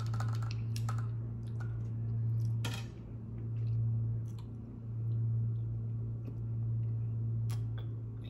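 A steady low electrical or appliance hum that swells and fades about every one and a half seconds. Over it, faint chewing and a few sharp clicks, one about a second in, one near three seconds and one near the end.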